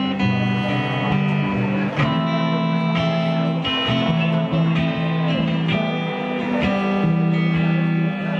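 Rock band playing live: guitars, bass guitar and drums.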